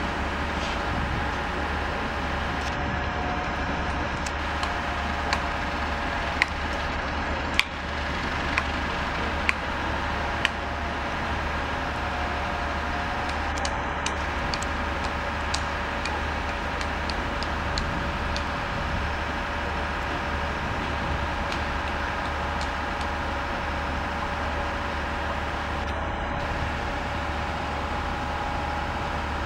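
Diesel locomotive running steadily with a low rumble and a constant hum, with a run of sharp clicks about five to ten seconds in.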